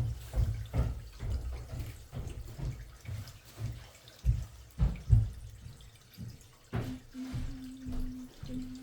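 Water from a running sink draining through the sewer line, splashing and gurgling at the open cleanout, with irregular low thumps. A steady low hum joins near the end.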